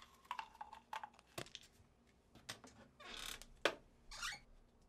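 Faint, scattered small clicks and scratches of fingers fidgeting and picking at a small object. Two short soft hisses come near the end.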